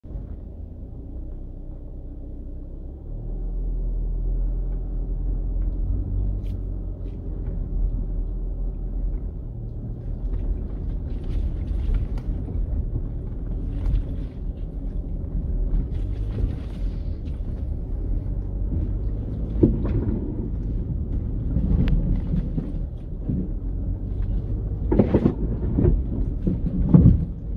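Vehicle driving over a rough dirt road, heard from inside the cabin: a steady low engine and road rumble that gets louder about three seconds in. Scattered knocks and rattles from bumps are heard throughout, and the loudest come near the end.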